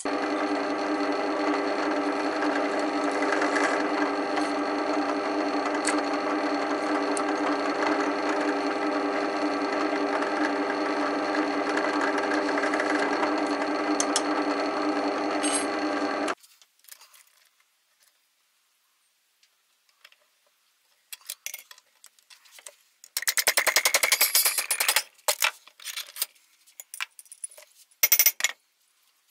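Bench drill press motor running steadily while drilling holes in a steel bracket, stopping abruptly about halfway through. After a pause there is a loud stretch of metal-working noise and then a few sharp hammer blows on the bracket held in a bench vise as it is bent.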